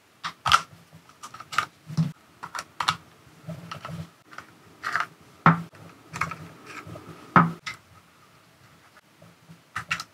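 Irregular clicks and clacks of hard plastic as a handheld RC transmitter is taken apart by hand: battery covers pried off, batteries pulled out and a plug-in module adapter unplugged.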